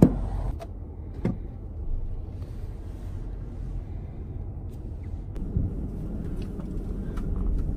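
Low steady rumble, with a sharp knock at the start and a click about a second in, then a few faint ticks.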